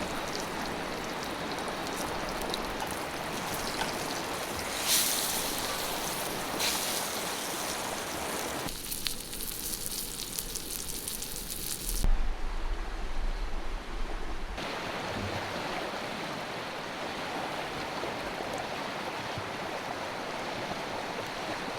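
Steady rushing of a fast-flowing mountain river, its tone changing abruptly a few times, with a stretch of low rumble about twelve seconds in.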